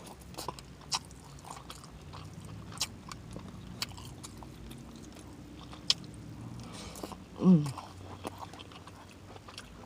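Close-up mouth sounds of someone eating: chewing with sharp, wet smacking clicks scattered through, and a short voiced sound about seven and a half seconds in.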